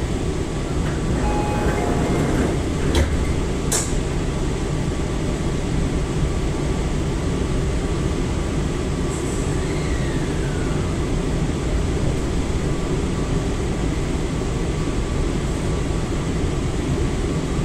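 Sliding doors of a Tobu 60000 series electric train closing. A short falling two-note door chime plays, then the door leaves shut with two knocks a little under a second apart. Behind it is the steady hum of the car's equipment.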